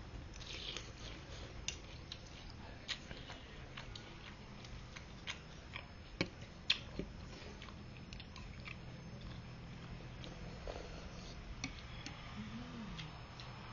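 A person eating noodle soup: chewing, with scattered sharp clicks of utensils against the bowl.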